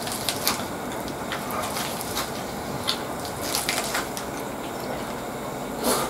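Close-up chewing of a lettuce-wrapped burger, with irregular crisp crunches of fresh lettuce leaves and a louder crackle just before the end.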